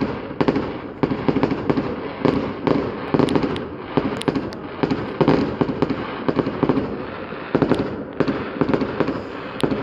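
Fireworks display going off in quick succession: a continuous barrage of sharp bangs and booms, several a second, over a steady crackle.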